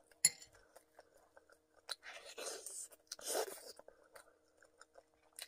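Close-miked chewing and crunching of crispy fried chicken, with a sharp click just after the start and two crackly stretches in the middle as the crisp skin is torn apart by hand.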